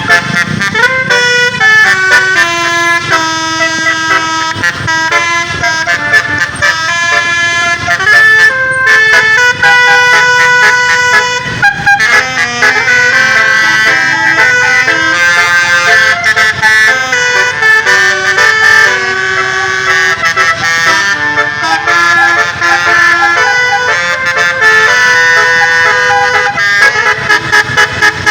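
Bus telolet horns playing melodies: sets of musical air horns sounding tunes in quick steps from note to note, some notes stuttered in rapid toots.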